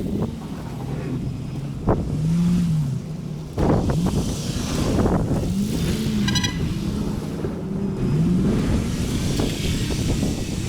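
Snowplow truck's engine revving up and down several times over a low rumble as it pushes snow, with a sharp knock about two seconds in and a brief high beep a little past six seconds.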